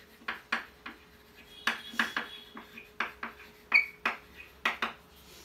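Chalk tapping and scraping on a blackboard as words are written: a quick run of sharp, irregular clicks, with a brief high squeak near the middle.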